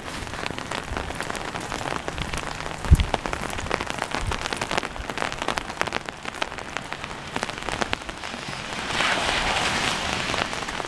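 Steady rain falling, with many individual drops striking nearby surfaces, one louder thud about three seconds in, and the rain a little louder near the end.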